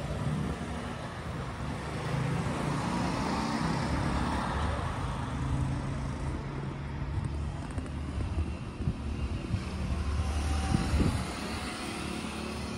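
Road traffic on a highway: motor vehicles running past with a steady low engine hum.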